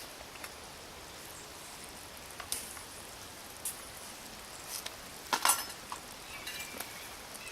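Food sizzling in a metal canteen cup, with a few sharp metal clinks and scrapes from a utensil. The loudest clinks come a little past halfway.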